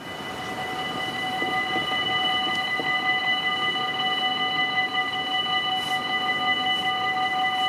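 Dutch level-crossing warning bells ringing steadily, a continuous bright metallic ring, as the crossing is activated and its barriers lower for an approaching train. Cars drive past underneath.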